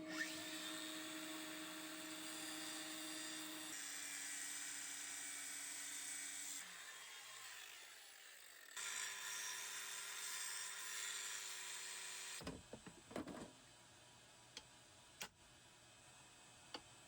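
Angle grinder cutting off bolts, a steady high-pitched whine. It winds down with a falling pitch about six and a half seconds in, starts again about two seconds later, and stops after about twelve seconds, leaving a few faint clicks.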